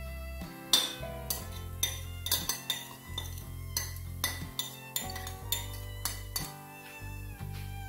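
Metal cutlery scraping and clinking repeatedly against a plate as flaked mackerel is pushed off into a frying pan, sharp clicks from about a second in until near the end. Background music with a steady bass runs underneath.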